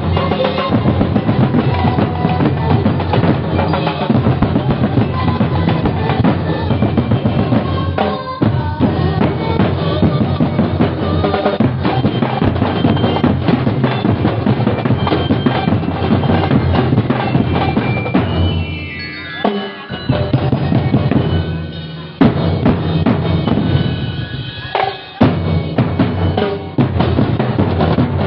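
Street-band drum corps of snare drums, multi-tom drums and bass drums playing a loud, continuous beat together. The drumming breaks off briefly a few times about two-thirds of the way through, then picks up again.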